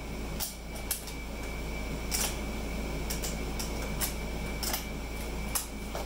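Ratchet strap buckle being worked to tighten the strap, a string of irregular clicks about every half second as the ratchet handle is cranked.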